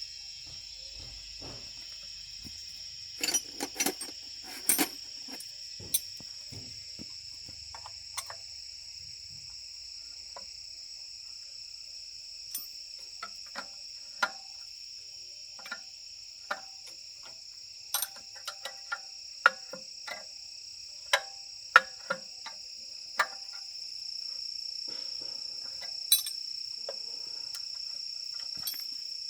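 A steady high-pitched insect drone, with irregular sharp metallic clicks and taps of tools and parts being handled scattered through it, some ringing briefly.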